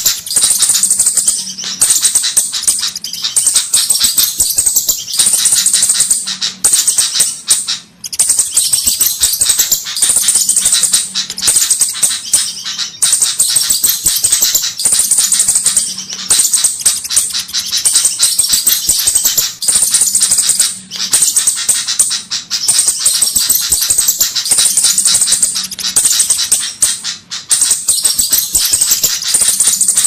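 Looped bird-lure recording of flowerpecker calls: rapid, high, dry ticking chips in dense repeated bursts about every second and a half, played to draw flowerpeckers in for catching.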